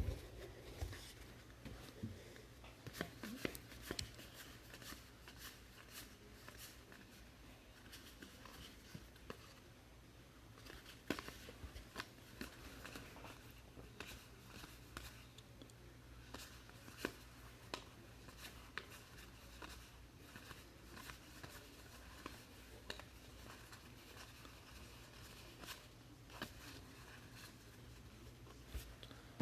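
Faint, scattered clicks and light rustles of trading cards being handled and flipped through, over a steady low hum.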